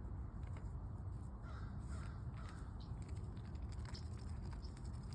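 Crows cawing a few times, roughly one and a half to two and a half seconds in, over a steady low rumble.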